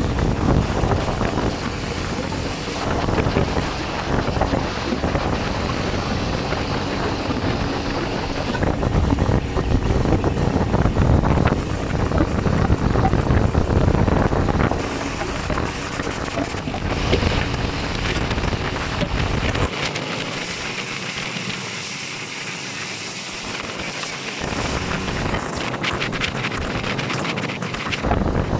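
Wind buffeting the microphone over the steady rush of a motorboat under way across open sea. The low rumble of the wind thins out about two-thirds of the way through.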